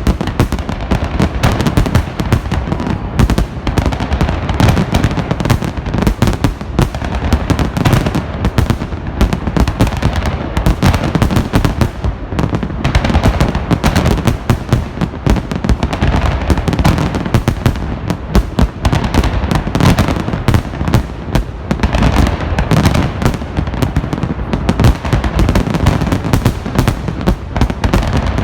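Festive salute fireworks bursting in a dense, unbroken barrage, many bangs every second overlapping into a continuous rumble.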